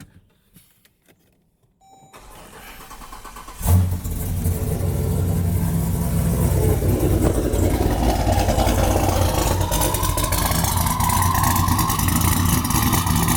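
Twin-turbocharged Jeep Grand Cherokee SRT's HEMI V8 started after sitting for almost two months: a brief chime, the starter cranks for about a second and a half, the engine catches with a loud flare just before four seconds in, then settles into a steady, loud idle with a deep rumble.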